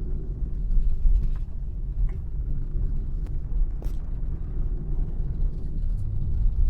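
Car driving, heard inside the cabin: a steady low road and engine rumble with a few faint clicks of the interior rattling the owner is demonstrating.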